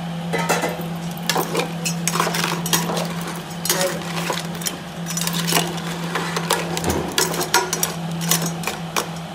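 Perforated steel skimmer stirring crab pieces in gravy, scraping and knocking irregularly against the side of a metal pot, over a steady low hum.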